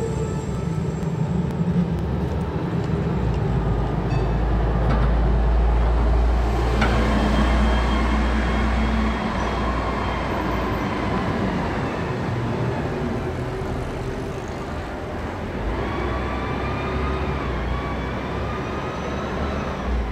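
City street traffic: a city bus approaches with a heavy low rumble in the first half. Near the end a tram comes up, with a high wavering, gliding tone around three quarters of the way in.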